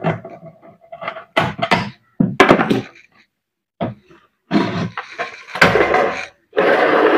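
Knocks, clatters and scraping from an electric rice cooker's metal body and parts as they are handled and pulled apart by hand. It starts as a string of short, sharp hits, and from about halfway through turns into longer stretches of rattling and scraping.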